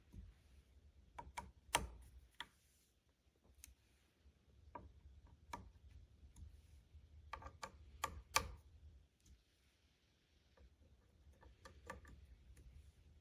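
Faint, irregular clicks and ticks of a hand driver on the scope ring screws as they are snugged down a second time in a crisscross pattern, with a quick run of clicks about eight seconds in.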